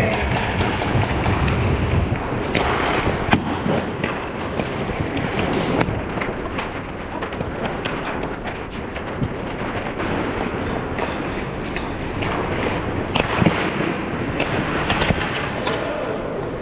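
Ice hockey play around the net: skate blades scraping the ice, with a steady clatter of sticks and puck knocking. A few sharper cracks stand out, one about three seconds in and two near the end.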